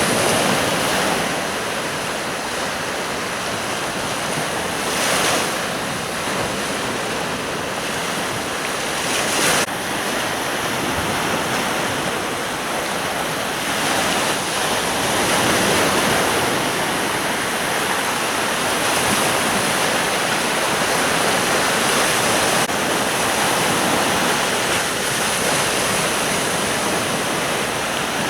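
Sea waves breaking and washing up a beach in a steady rolling wash that swells and eases every few seconds, with wind on the microphone.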